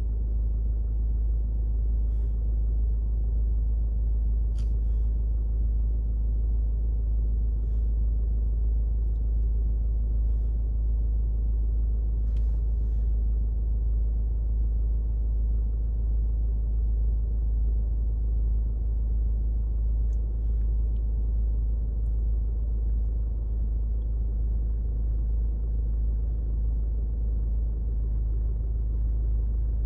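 Steady low rumble of a car idling at a standstill, heard from inside the cabin, with a few faint clicks.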